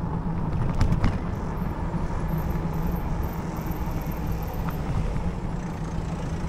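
Wind rumble on the microphone and steady rolling noise from an electric bike riding along a rough tarmac lane, with two sharp knocks about a second in.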